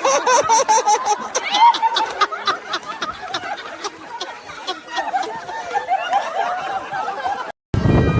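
A person laughing with a rapid run of breathy pulses. It cuts off suddenly near the end.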